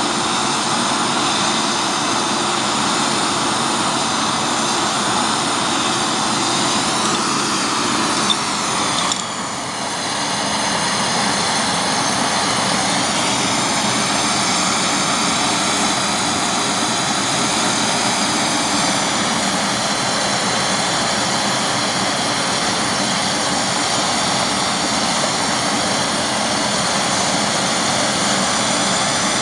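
Gas torch burning with a steady, loud hiss, heating a conrod's small end for a shrink-fit gudgeon pin. A short knock comes about eight seconds in, followed by a brief drop in level.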